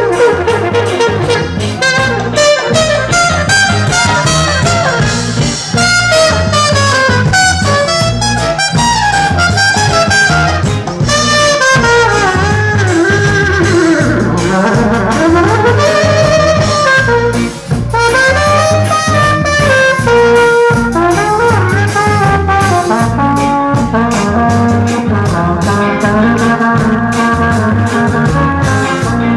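Live ska band playing an instrumental passage, the horns (trumpet and saxophone) carrying the melody over a steady drum and bass beat.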